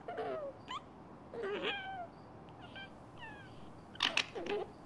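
Fox whimpering: a string of about six short, high, squeaky cries and whines, some sliding up in pitch and some sliding down, with the loudest pair near the end.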